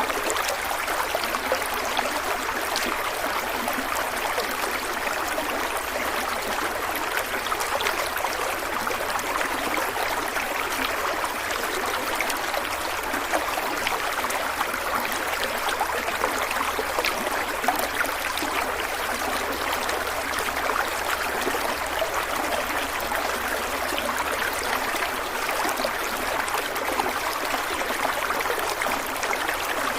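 A stream of water flowing steadily: a continuous babble flecked with many small splashes and drips.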